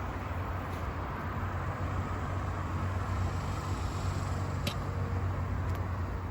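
Campfire burning: a few sharp crackles over a steady low rumble.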